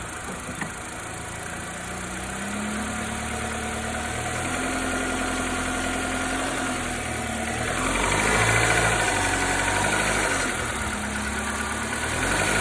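Nissan MRA8DE 1.8-litre four-cylinder engine running with the car in reverse gear, with a knocking or tapping that the owner hears only in gear and that he suspects may not be normal. The engine note rises about two seconds in and grows louder around eight seconds in.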